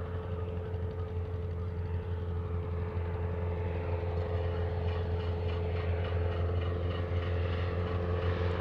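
Single-engine Mooney M20 light plane's piston engine and propeller droning steadily overhead, with a few steady tones. It grows gradually louder as the plane approaches.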